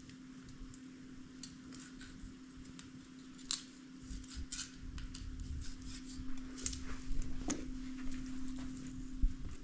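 Scattered light clicks and taps at irregular spacing over a steady low hum.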